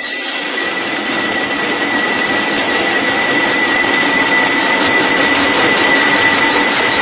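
Small wheat flour milling machine running steadily with a high whine as grain is fed into its hopper, growing slightly louder over the first few seconds.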